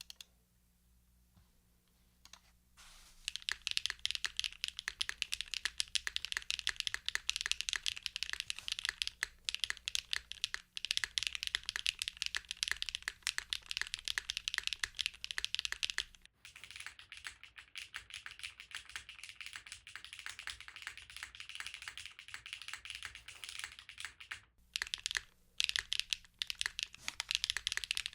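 Steady fast typing on a Mode Encore custom mechanical keyboard, isolated top mount with an aluminium plate, Keygeek Y1X switches and GMK keycaps: a dense run of key clacks. The typing starts about three seconds in, after a brief click. For about eight seconds in the middle it is heard through a phone microphone and sounds duller.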